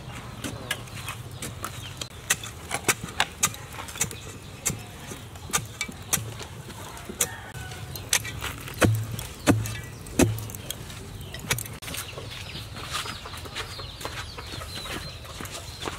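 Metal bar jabbed repeatedly into packed soil to dig a hole: three heavier dull thuds about nine to ten seconds in, each roughly two-thirds of a second apart, among many lighter sharp knocks and clicks.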